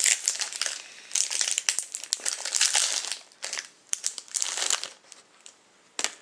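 Crinkly wrapper of an individually wrapped Nestlé Crunch Snack wafer bar crackling in irregular bursts as it is pulled open by hand, stopping about five seconds in. A single sharp click follows about a second later.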